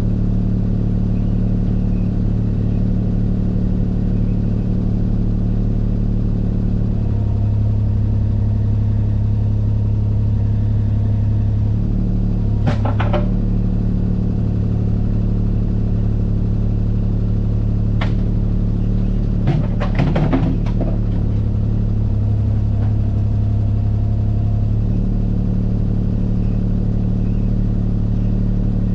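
Bobcat skid-steer diesel engine running steadily, its pitch shifting slightly now and then. Short clanks and rattles come twice near the middle, typical of rocks knocking in the bucket during loading.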